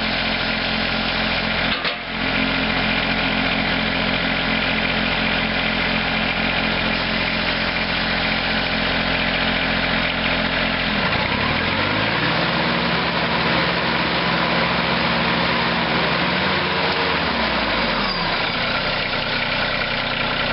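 An engine running at a steady idle, revved up about halfway through, held at the higher speed for several seconds, then let back down to idle near the end.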